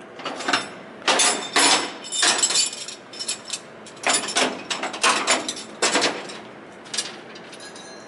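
Hard objects being handled and moved: an irregular run of clanks, knocks and scrapes, some with a faint metallic ring.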